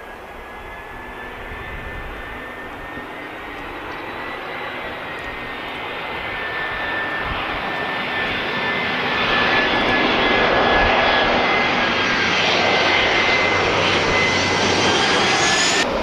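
Jet engines of a twin-engine narrow-body airliner on final approach with gear down, passing low overhead. It is a rushing roar with a steady high whine on top, growing louder as the plane approaches and loudest in the last several seconds.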